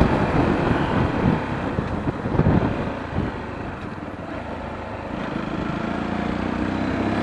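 Sinnis Terrain T125's 125cc engine running while being ridden. It eases off about three seconds in, then picks up again, its pitch climbing steadily near the end as the bike accelerates.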